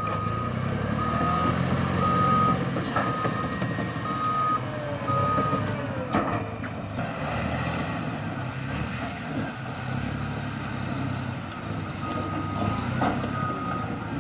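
Caterpillar D6T bulldozer's diesel engine running steadily while its backup alarm beeps about once a second as it reverses. The beeping stops about six seconds in, with a sharp knock, and starts again near the end.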